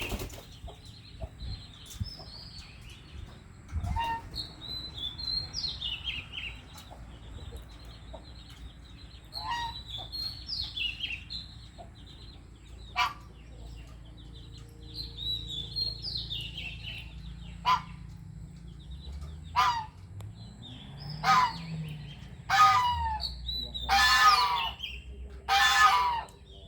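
A murai songbird repeating short, high phrases that step down in pitch every few seconds. Sharp clicks come in between, and there are louder, harsher calls near the end.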